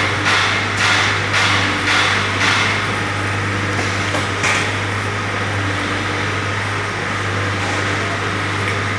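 Garment-factory workroom noise: a steady low machine hum under a regular knocking, about two knocks a second, that stops about two and a half seconds in, with one more knock a couple of seconds later.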